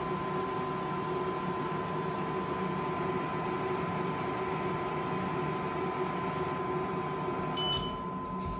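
xTool F1 Ultra galvo laser engraver running as it engraves a slate coaster: a steady fan hum with a constant high whine. A brief high beep sounds near the end.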